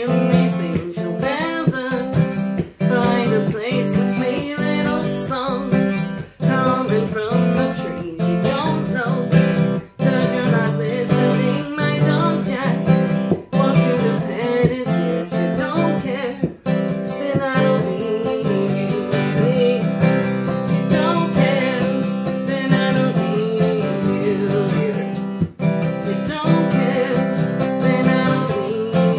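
A woman singing a song to her own strummed acoustic guitar.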